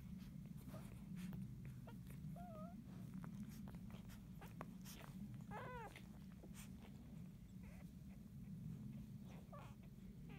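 Newborn Labrador Retriever puppies squeaking in their sleep: a brief wavering squeak about two seconds in, a quick run of several squeaks near the middle, and a faint squeak near the end, with soft scattered clicks over a steady low hum.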